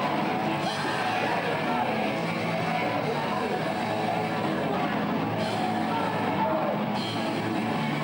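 Rock band playing, with electric guitar to the fore.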